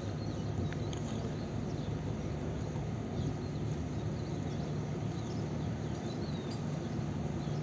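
Outdoor ambience: a steady low hum with scattered short, high chirps of small birds.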